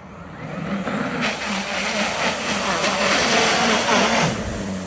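A vehicle driving through a flooded ford: its engine runs under a loud hiss of splashing water that builds over about a second, stays up, then drops off sharply about four seconds in.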